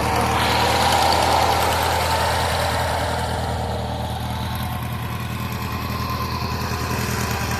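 Murray lawn mower's small gasoline engine running steadily, turning freely again after water that had hydro-locked it was drained out. It gets a little louder about a second in, then eases slightly.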